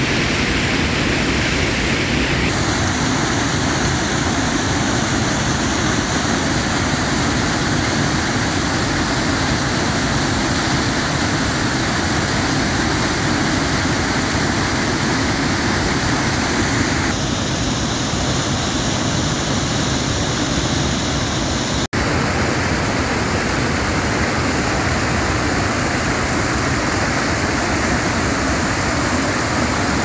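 Loud, steady rushing of churning river water over rapids and a rocky waterfall. It breaks off for an instant about two-thirds of the way through.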